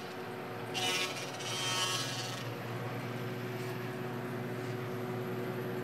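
Grizzly 8-inch jointer running, its cutterhead planing the edge of a long walnut board. There is a louder cutting hiss from about one second in until about two and a half seconds, then a steady machine hum as the board carries on across the beds.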